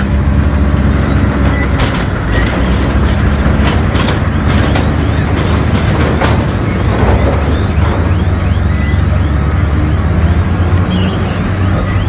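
Bulldozer's heavy diesel engine running steadily under load, with sharp metallic clanks and a run of quick, repeated squeaks from the tracks in the second half.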